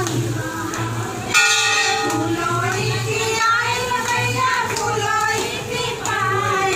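Women singing a village folk dance song over a steady low beat, and a brass temple bell that rings out with a sudden bright stroke about a second and a half in.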